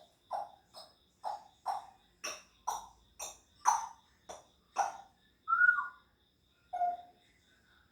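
African grey parrot mimicking sound effects: a run of short popping clicks, about two a second, then one whistled note that slides down and a short lower whistle.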